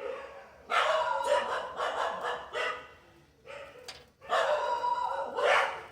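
A dog barking in quick runs: a long run about a second in, a short burst, then another long run near the end.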